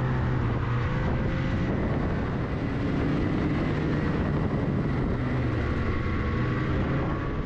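Ski-Doo snowmobile engine running at a fairly steady cruising pitch along a packed trail, heard from on board with track and wind noise.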